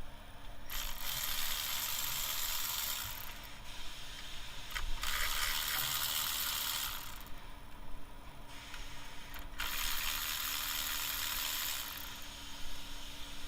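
Ratchet wrench spinning bolts loose in three runs of two to three seconds each, with short pauses between.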